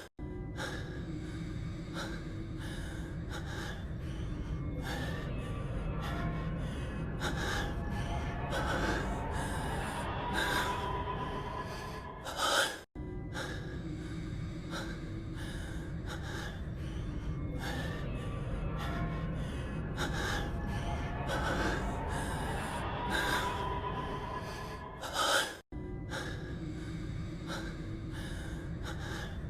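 A man's heavy breathing and gasps from an anime soundtrack, with music and a low rumble beneath, looped over and over. The loop restarts about every 13 seconds, each pass ending in a louder sharp gasp and a split-second cut to silence.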